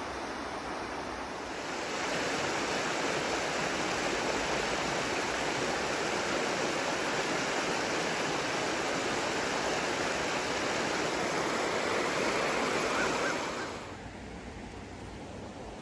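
Shallow river water rushing over rock ledges and boulders, a steady rush that grows louder a couple of seconds in and drops away sharply near the end.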